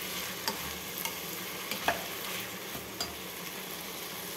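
Diced vegetables sizzling in hot oil in a steel pressure cooker as a wooden spatula stirs them. The spatula clicks against the pot a few times, loudest about two seconds in.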